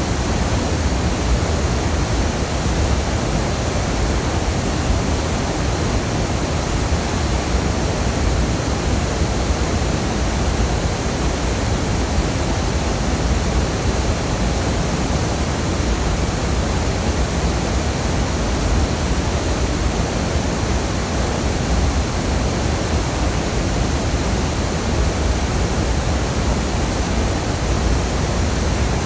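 Waterfall roaring steadily: a dense, unbroken rush of falling water, heaviest in the low end.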